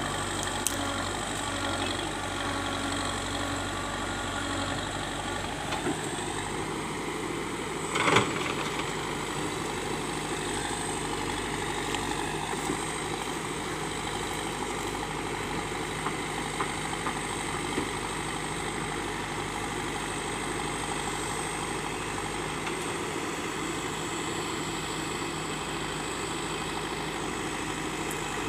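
Terex 740 backhoe loader's diesel engine idling steadily, with a sharp metallic clank about eight seconds in.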